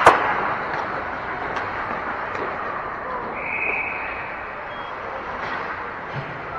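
Ice hockey game in an indoor rink: a sharp crack of an impact right at the start, then a steady arena din of skates, players and spectators. A short high steady tone sounds for about a second, roughly three seconds in.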